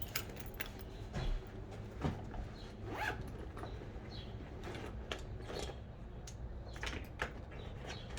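Hand tools being rummaged through and handled: scattered light clicks, clinks and short rasps, over a faint steady low hum.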